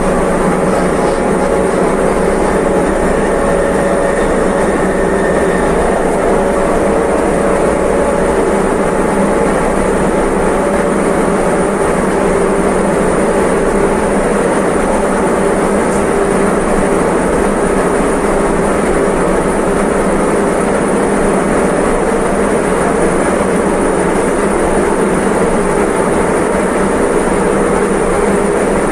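CAF-built metro train of the M4 line running at steady speed: an unbroken rumble with a few steady tones held through it.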